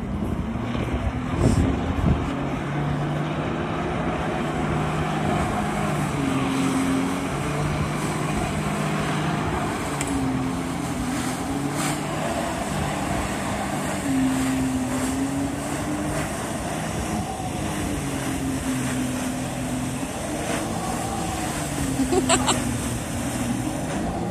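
Jet ski engine driving a flyboard through its hose, the revs rising and falling every few seconds as the throttle is worked, over a steady rush of water spray.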